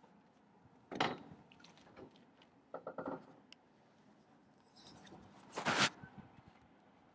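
A few brief scraping and rubbing sounds over faint background noise: one about a second in, a quick cluster of short ones around three seconds in, and the loudest near the end.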